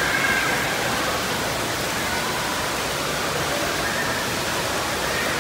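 Steady rushing and splashing of water from splash-pad floor jets spraying up through shallow water.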